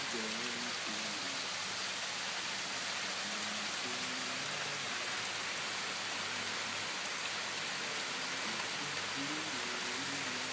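Steady rain falling hard and evenly, with no thunder. Faint voices talk in the background near the start and again near the end.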